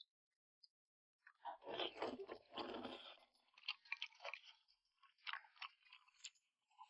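A person eating chewy yam starch sheets with minced pork: irregular chewing and mouth sounds, starting about a second in and loudest for the next couple of seconds.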